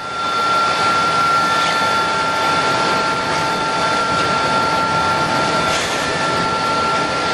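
Wet vacuum running with a steady high whine, its floor wand sucking up dirty wash water.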